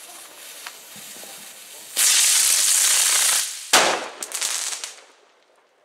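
A ground firework fizzes quietly, then bursts into a loud hissing spray of sparks about two seconds in. A sharp bang and a few crackling pops follow, and it dies away shortly before the end.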